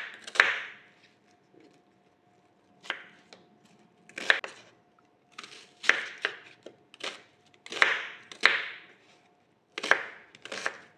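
Chef's knife chopping an onion on a wooden cutting board: sharp knife strikes on the board, coming irregularly in small groups with short pauses between.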